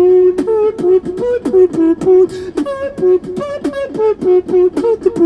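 Human beatboxer performing a movie-theme melody, voicing a held, stepping pitched line while punctuating it with sharp mouth-made drum clicks, amplified through a handheld microphone and small portable amp.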